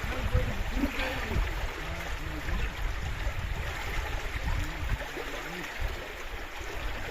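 Stream water running over stones, a steady rushing wash, with faint distant voices of people talking.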